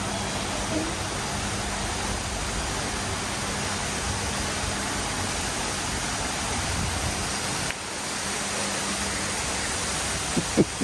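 Steady, even rushing noise with no distinct events; it dips slightly about eight seconds in.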